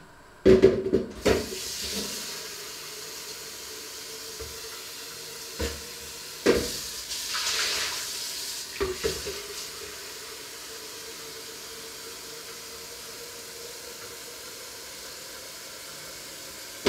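Kitchen tap running water into a plastic measuring jug: a steady hiss with a faint hum, turned on about half a second in and shut off sharply at the end, with a few knocks of the jug and tap along the way.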